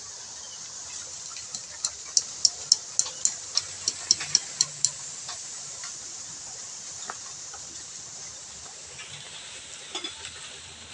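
About a dozen quick, sharp hammer strikes, three or four a second, on a wooden chopping block, splitting kindling, over a steady high hiss.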